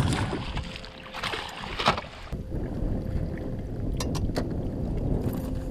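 Wind rumbling on the microphone over lapping lake water, with a hooked pike splashing at the surface in the first two seconds. A few sharp knocks follow about four seconds in.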